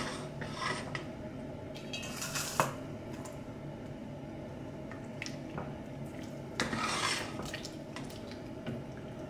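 Plastic slotted spoon stirring water in a stainless steel stockpot, with a few sharp knocks of the spoon against the pot, the strongest about two and a half seconds in, and a brief swish of stirred water around seven seconds in.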